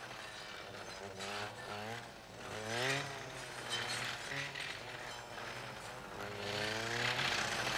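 Two-stroke brush cutter (clearing saw) revving up and down several times as its blade cuts through young pine saplings to thin the plantation.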